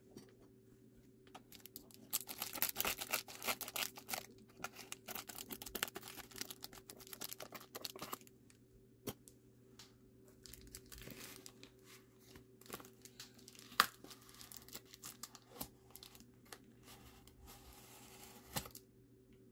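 Foil-lined packaging being torn open and crumpled by hand: a dense spell of crinkling and tearing in the first half, then scattered rustles and a single sharp click about two-thirds of the way through.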